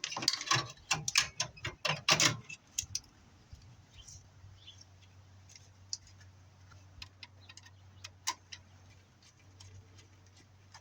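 Hand work on furnace parts and wiring: a quick run of sharp metal clicks and clatters for the first two seconds or so, then scattered light clicks over a faint low hum.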